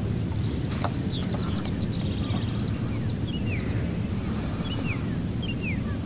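Steady wind rumble on the microphone with birds calling over open water: a chattering call about two seconds in, then a string of short falling chirps.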